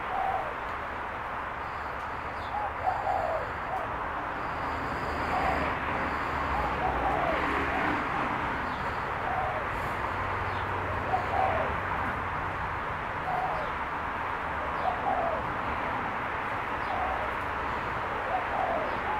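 Dove cooing: short low coos repeated every second or two, over a steady hiss of background noise.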